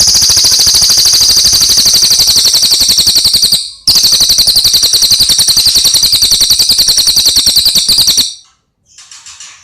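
Cililin bird singing a loud, very fast, even trill in two long runs, with a short break after about three and a half seconds; it stops a little over eight seconds in, followed by a few fainter chirps.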